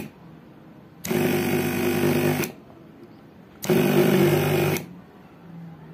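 Small 12-volt DC diaphragm pump motor humming in short runs. It stops sharply three times and restarts twice, each run lasting about a second. Its pressure switch is cutting the motor off as the outlet is shut and letting it restart when pressure drops.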